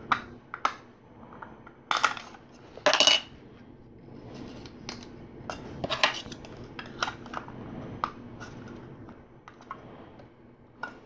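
Plastic LEGO pieces clicking and clattering as they are handled and snapped together, with two louder clacks about two and three seconds in.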